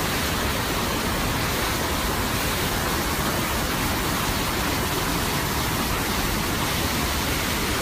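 Loud, steady rushing water, heard close up, with no change or pause.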